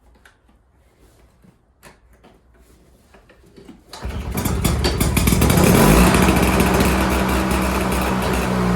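A 7 hp Tecumseh two-stroke snowblower engine catches suddenly about four seconds in and runs loud. Its pitch rises briefly, then holds steady. Before it starts there are only a few faint clicks of handling.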